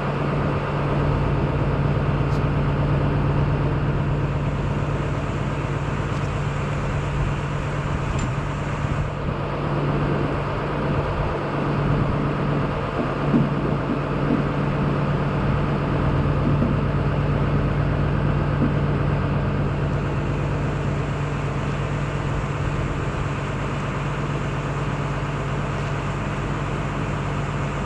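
Engine idling steadily, an even machine drone, with a few light clinks of tools near the middle.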